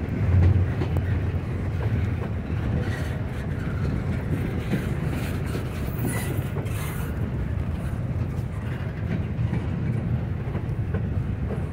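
Double-stack intermodal freight train of container-laden well cars rolling past: a steady low rumble of steel wheels on rail, with wheels clicking over the rail joints.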